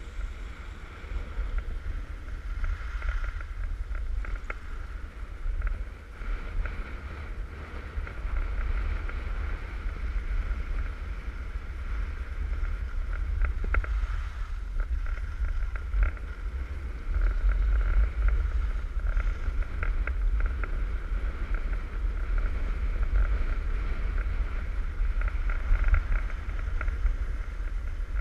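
Wind buffeting a GoPro's microphone during a downhill ski run, a constant low rumble, over the steady hiss and scrape of skis on packed snow.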